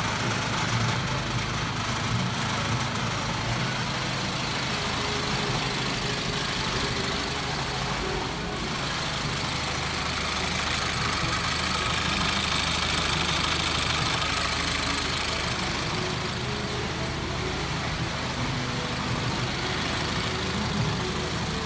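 A car engine idling steadily, a constant low hum with no change in speed.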